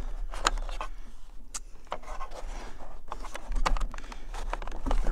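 Scattered light clicks, taps and scrapes of a wiring harness and door-panel parts being handled as the harness is fed up behind the window switch module of a Jeep Grand Cherokee door panel.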